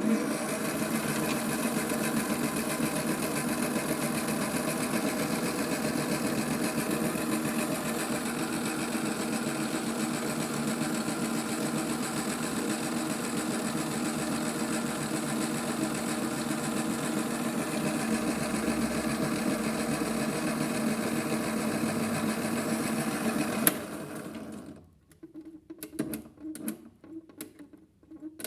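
Small electric motor of a Theo Klein toy Miele washing machine running its drum with a steady whir, cutting off about four seconds from the end. A few faint irregular clicks follow in the pause.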